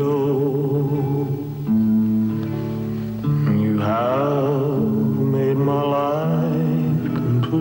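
Slow background music: a melody held in long notes with vibrato over sustained low chords.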